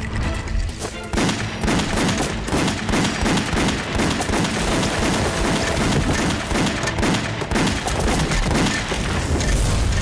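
Rapid, dense gunfire from rifles and pistols, shots following one another several times a second, over dramatic background music. The shooting thickens about a second in.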